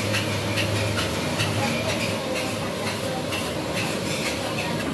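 Busy street-food stall ambience: a steady rumble and hiss with scattered clinks and clatter of cooking and dishes.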